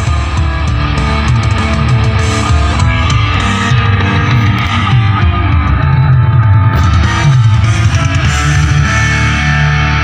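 Rock music with electric guitar and a heavy bass line playing loud through Songbird oval multi-way car speakers, with only the rear speakers on and the front ones turned down to zero.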